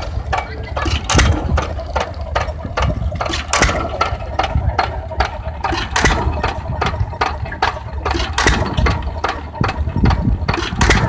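Early-1900s stationary gasoline engine running, a low rumble broken by an uneven stream of sharp clacks and knocks from its valve gear and firing.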